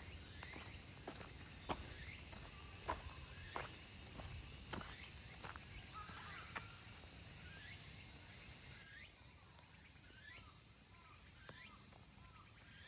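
Steady, high-pitched insect chorus, with small birds chirping briefly now and then. Regular footsteps on a paved path, about one and a half steps a second, run through the first half.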